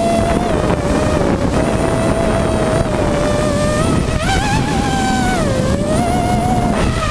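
The brushless motors of a small hexacopter, Robbe 2216 motors on Turnigy Plush ESCs, whining steadily in flight, recorded from on board. The pitch wobbles with constant throttle corrections, rises about four seconds in and drops back about a second and a half later, with wind noise over the microphone.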